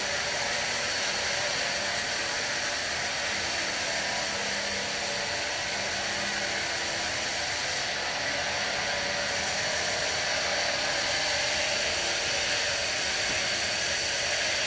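Sawmill bandsaw running steadily, a constant loud hiss-like machine noise with faint steady tones in it.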